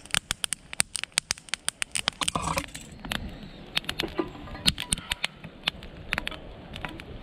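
Split-wood fire crackling and popping in a camp fire stand: a dense, irregular run of sharp pops and snaps, several a second.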